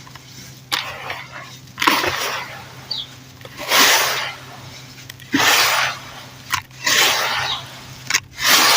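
Lumps of dirt crumbled by hand: a gritty crunch about every second and a half, with a few short sharp snaps in between.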